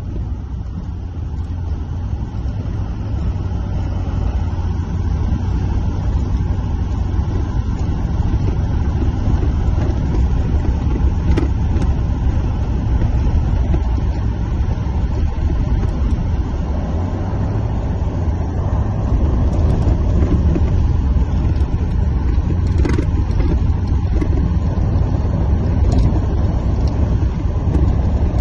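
Vehicle driving on a snowy road, heard from inside the cab: a steady low rumble of engine and tyres with a hiss above it, growing a little louder over the first several seconds.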